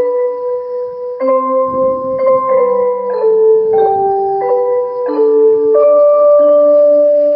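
A school music chime playing a slow melody in bell-like electronic tones, the notes held and overlapping into chords and changing about once a second.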